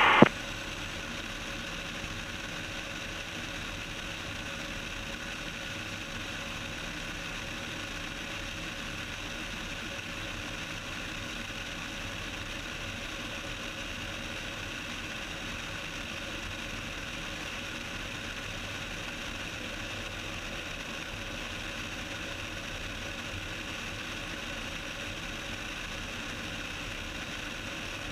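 Cessna 172's engine and propeller droning steadily in flight, holding constant power with no change in pitch or level.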